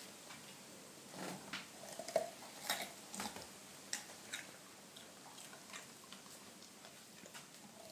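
A dog crunching and gnawing on a raw carrot: irregular crisp crunches, coming thick at first and thinning out to an occasional bite over the last few seconds.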